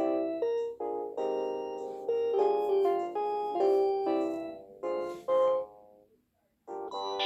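Piano music: notes and chords struck one after another and left to die away. The playing fades to a short silence about six seconds in, then starts again.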